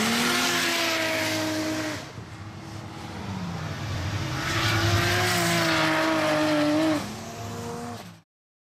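Car engines held at high revs while the rear tyres spin and squeal in burnouts, including the R33 Nissan Skyline smoking its tyres. The engine note sags about two seconds in, revs back up and holds high, then tails off, and the sound cuts off near the end.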